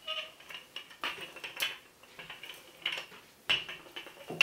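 Wooden rolling pin rolling out pie dough on a pastry board, with a short scraping knock on each stroke, about one a second.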